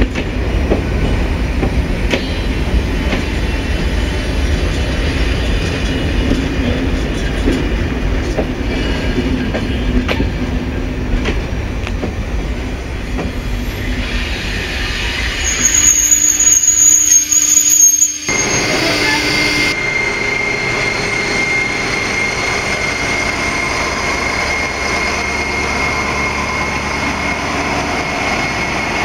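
Corail Intercités passenger coaches rolling past at speed, with wheel rumble and clicks over the rail joints, and a brief high squeal about 16 to 18 seconds in as the last coach passes. The sound then changes suddenly to a diesel locomotive running steadily with a high whine.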